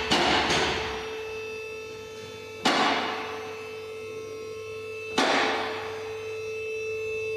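Four sharp knocks that each ring on briefly, two close together at the start and then single ones about two and a half seconds apart, over a steady hum.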